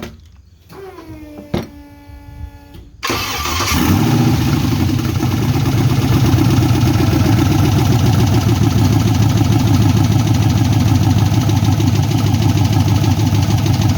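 An LS V8 swapped into a 1979 Ford F-150 is being cranked over by its starter with a whine for about two seconds. About three seconds in it catches, and then it idles steadily and loudly with the misfire and knock that the owner cannot trace, even with spark, fuel and 180 psi of compression on the cylinder.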